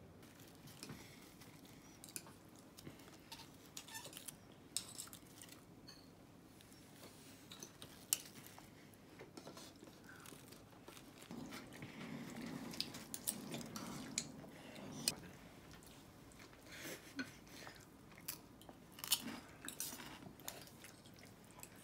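Scattered quiet clicks and taps of tableware, with soft rustling as lettuce leaves are set onto a dinner plate.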